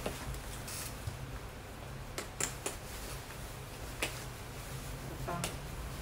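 Snap buttons on a padded coat clicking open one after another, about five short sharp clicks over a few seconds, over a low steady hum.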